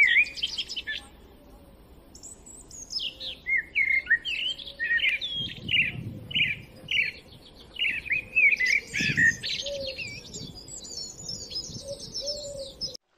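A songbird singing a long run of quick, varied chirping and warbling notes, cutting off suddenly near the end.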